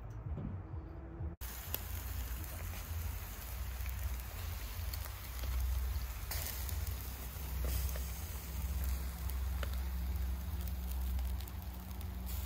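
Whole trout sizzling on a stainless grill grate over charcoal: a steady hiss with scattered crackles and pops, over a low rumble. It starts abruptly about a second and a half in.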